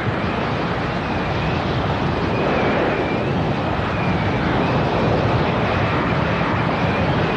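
Yak-38 jet engines running: a steady rushing noise with a faint high whine that wavers in pitch.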